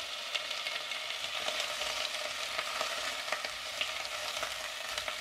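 Hot oil sizzling steadily with many small crackles as blanched wood ear mushrooms are stir-fried with scallion and ginger shreds in an enamelled pot, turned with a wooden spatula.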